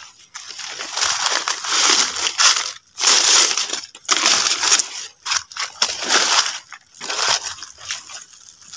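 Footsteps crunching through dry leaf litter and leafy undergrowth rustling against the walker, in uneven bursts with brief pauses.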